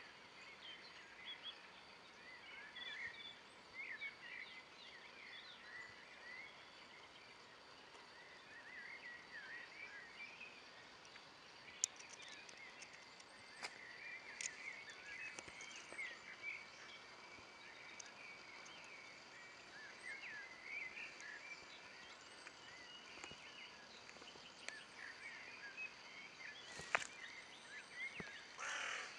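Faint outdoor ambience of small birds chirping over and over in the background, with a couple of sharp clicks and a short, harsh call near the end.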